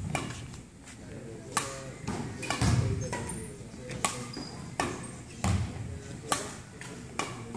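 Badminton rackets striking a shuttlecock in a rally, a sharp crack every second or so, echoing in a large sports hall.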